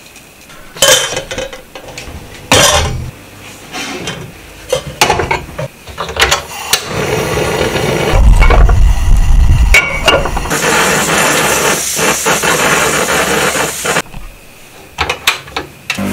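Knocks and clatter of a pot and kitchen utensils being handled, then a gas stove burner hissing steadily for several seconds with a low rumble near the start; the hiss stops suddenly, followed by a few more knocks.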